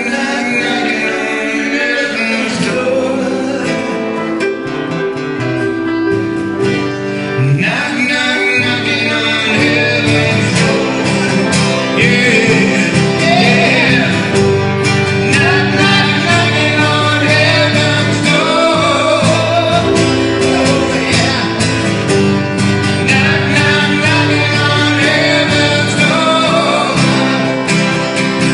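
A song with guitar and a singing voice; the voice is most prominent from about a quarter of the way in.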